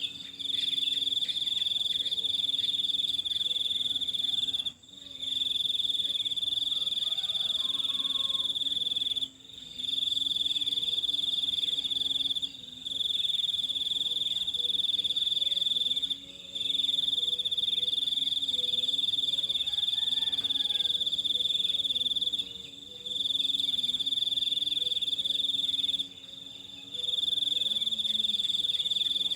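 An insect trilling steadily at one high pitch in long runs of several seconds, broken by brief pauses every few seconds. A faint, wavering lower sound runs underneath.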